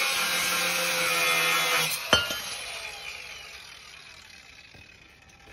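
Cordless angle grinder cutting through a metal wall-bracket rail. It ends about two seconds in with a single sharp metal clink as the offcut drops onto concrete. The disc then spins down with a falling whine that fades away.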